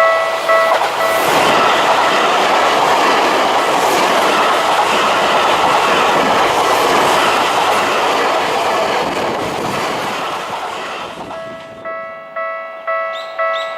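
Train passing over a level crossing for about ten seconds, a loud rush of wheel and running noise. It drowns out the crossing's warning bell, which rings about twice a second and comes through again near the end as the noise fades.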